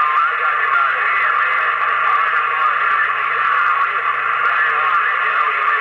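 CB radio receiver static: a loud, steady hiss from the radio's speaker between transmissions, with no voice on the channel.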